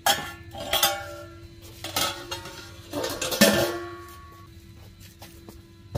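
Four metallic clinks and clanks in the first three and a half seconds, each ringing on briefly, the last one the loudest: fired pottery pieces and a stainless steel pot being handled.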